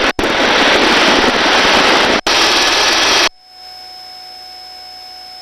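Helicopter noise heard through the crew's open intercom microphone as a loud steady rush, broken twice by split-second dropouts. About three seconds in the microphone cuts out abruptly, leaving a much quieter steady electronic tone.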